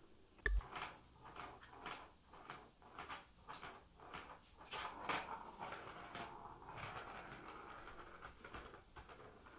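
A cat pawing at a Catit Senses Super Roller Circuit, a ball rattling and rolling in its plastic track: a sharp knock about half a second in, a run of quick clicks and clatters, then a steadier rolling sound from about six seconds on.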